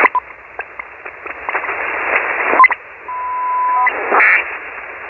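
Shortwave receiver audio from an Icom IC-7300 in lower-sideband mode while tuning across the 80-metre band. It gives band hiss with clicks and brief garbled sideband chirps, a steady whistle from a carrier for about a second past the middle, and a short loud burst of hiss near the end.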